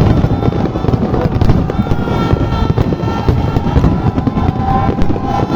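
Fireworks display: a dense, unbroken run of bangs and crackles.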